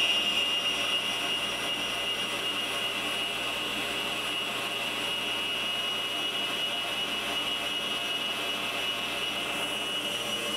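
Mondial stand mixer's motor running steadily at a raised speed, its wire whisk whipping cream in the steel bowl. It gives a steady high whine over a hum, a little louder in the first second and then even.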